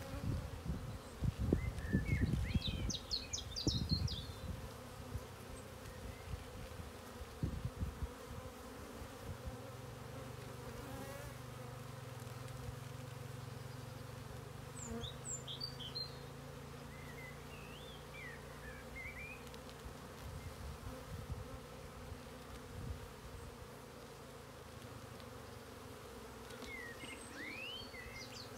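Honeybees humming around an opened hive while its frames are handled, a steady low hum. Loud low rumbling bursts fill the first several seconds.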